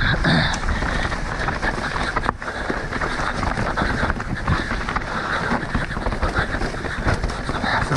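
Mountain bike descending a rough trail at race speed: wind rushing over the microphone, tyres on dirt and rock, and the bike rattling with many quick knocks over the bumps.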